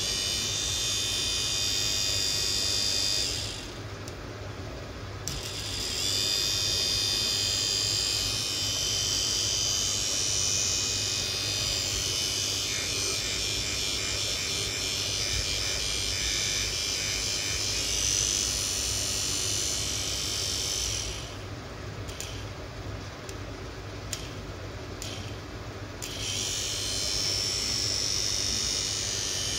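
DENSO 263500-5070 electric motor running with nothing on its shaft, powered from a 12 V battery as a test after repair: a steady high whine. It stops about three and a half seconds in and starts again two seconds later, then cuts out again for about five seconds near the end before running once more.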